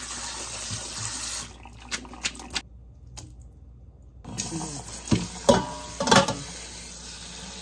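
Kitchen tap running into a sink, with a few light clicks. After a brief silence, water runs again with several sharp metal clanks of pots and utensils, some of them ringing.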